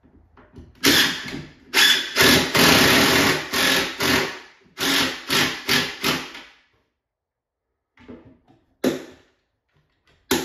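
Cordless drill-driver driving screws in several runs of a second or two each, fastening two clamped wall cabinets together. Near the end come a few short knocks and a sharp click as the clamps are taken off.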